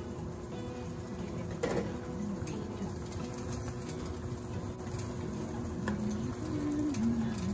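Pancit canton noodles simmering in broth in a wide pan, with a wooden spoon stirring and scraping through them. There is one sharp knock about two seconds in.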